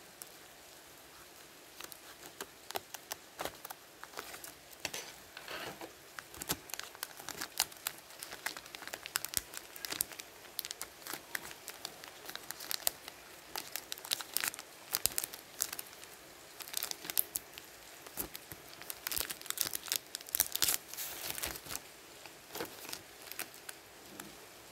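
Digimon trading cards handled and slid over one another by hand: a long, irregular run of crisp rustles and light clicks that starts about two seconds in.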